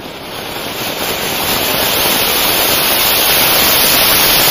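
Diwali flower pot (cone fountain firework) burning, its jet of sparks giving a loud, steady hiss that swells over the first couple of seconds and then holds.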